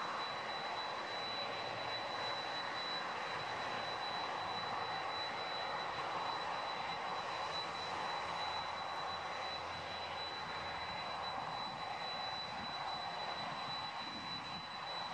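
Boeing 747-400's four turbofan engines at taxi power, a steady jet rumble with a thin high-pitched whine held on one note.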